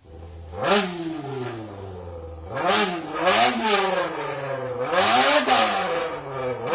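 A man's vocal imitation of a drag-racing car, voiced into a can: about four engine revs, each swooping up in pitch and falling away, with a short hissing crackle at the top of each rev.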